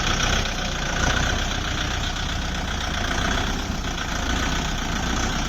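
Diesel engine of farm machinery running steadily, a continuous rumble with a constant higher-pitched drone over it.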